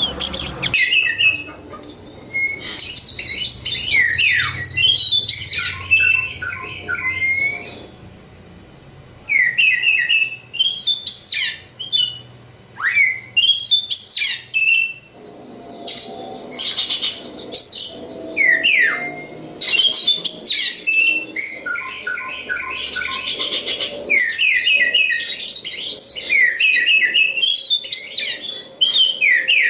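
Oriental magpie-robin (kacer) singing a varied, loud song: clear whistles, rising and falling slurs and rapid chattering trills, delivered in short phrases with brief pauses between them.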